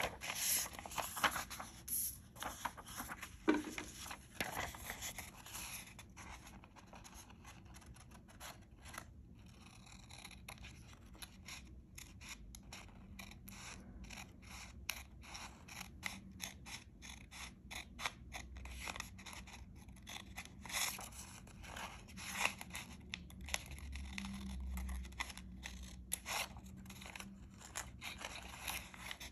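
Sheet of paper rustling as it is handled, then scissors snipping through paper in many short, quick cuts, two or three a second.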